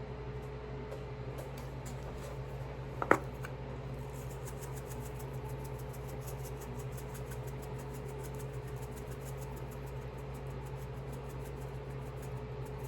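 Steady low mechanical hum, with one sharp clack about three seconds in.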